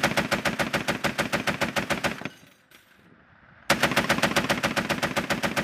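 Vehicle-mounted belt-fed machine gun firing two long bursts of rapid automatic fire, about nine shots a second. The first burst stops a little over two seconds in, and after a short pause the second starts a second and a half later.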